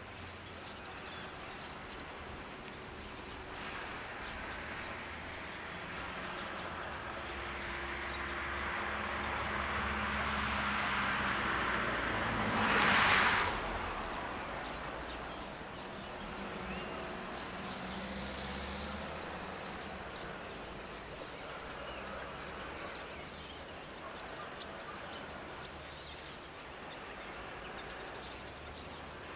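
Outdoor background noise. A distant vehicle swells slowly and fades again, and a brief loud hiss lasting about a second comes near the middle. Faint bird chirps are scattered throughout.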